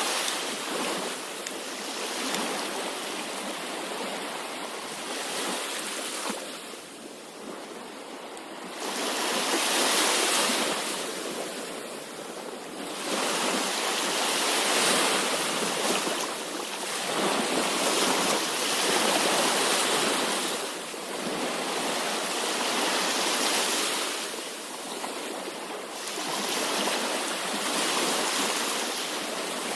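Sea waves breaking and washing on the shore, the surf swelling and easing every few seconds.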